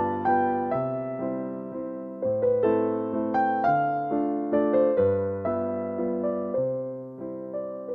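Background piano music: a slow melody of struck, fading notes over low notes that change about every second and a half.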